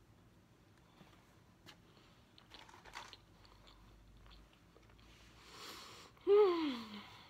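Soft closed-mouth chewing of a mouthful of chocolate éclair pie, with faint wet mouth clicks. A breath comes through about five seconds in, then a short hum that falls in pitch near the end.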